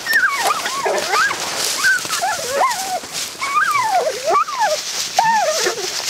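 Walker coonhounds yelping and whining over and over, their cries rising and falling in pitch, worked up over a raccoon shot out of a tree to them.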